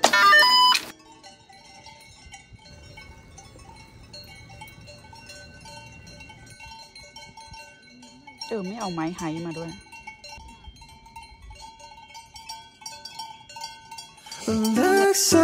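Many bells on grazing livestock clanking faintly and irregularly, with one wavering animal bleat about eight and a half seconds in. Background music fades out in the first second and comes back near the end.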